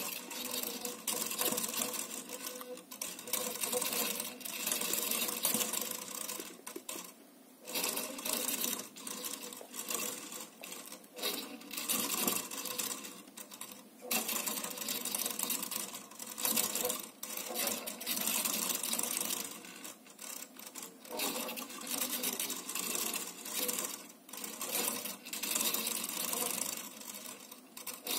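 Motors of a ball-and-plate balancing rig buzzing and chattering in irregular bursts as they tilt the plate back and forth to re-centre the metal ball after it is pushed off, with brief lulls in between.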